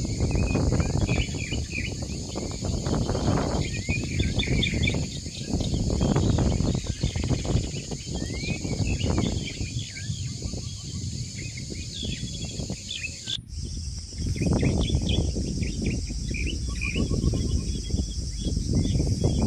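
Outdoor night ambience: a steady high chirring with many short bird-like chirps over an uneven low rumble. The sound shifts abruptly about two thirds of the way through.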